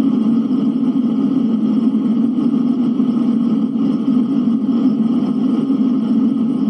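Blizzard wind blowing: a steady, even rush of noise with no clear gusts.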